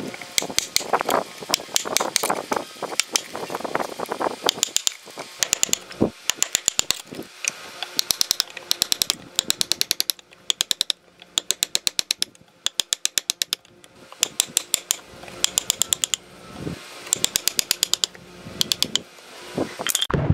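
Wood chisel chopping out a notch between saw kerfs in the end of a log: quick, even runs of sharp taps, about ten a second, with cracking of wood chips splitting away in the first few seconds.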